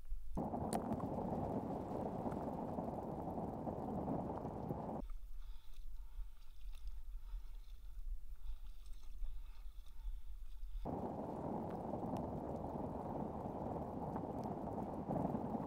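Muffled, steady rushing noise of a sea kayak being paddled on calm open water. About five seconds in it switches abruptly to a deeper, duller rumble, and about eleven seconds in it switches back to the rush.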